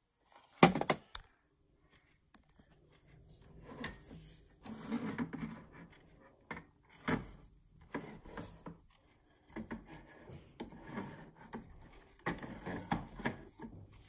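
Handling noise of small plastic clocks being turned over, moved and set down on a wooden shelf: a sharp knock just under a second in, then scattered rubbing and light knocks.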